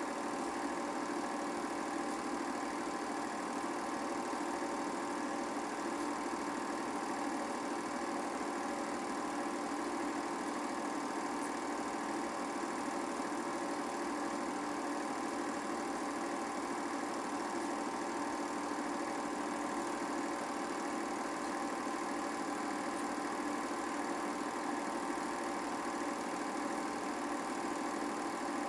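8mm film projector running steadily: a constant mechanical hum with several held tones and no change in level.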